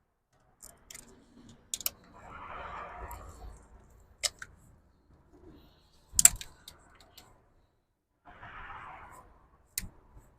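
Scattered clicks and knocks of hand tools and plastic ignition-coil connectors being worked loose in a Volvo XC90's engine bay, with one sharp knock about six seconds in. Twice, a second or so of soft rushing noise.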